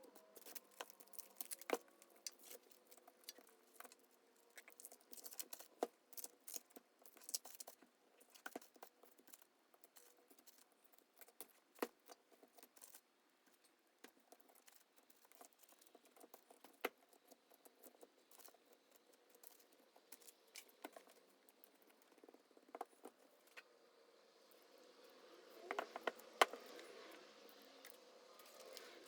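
Faint, scattered small clicks, taps and scrapes of hands working apart a 48 V lithium-ion e-bike battery pack, with a denser run of scraping and rustling near the end.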